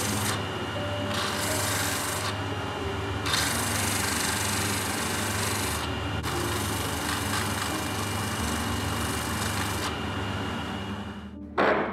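A curly birch pipe piece pressed against a spinning motor-driven sanding disc: a steady hiss of wood being sanded over the motor's hum, dropping out briefly three times as the piece is lifted off. Near the end the sanding stops and a loud thunk follows.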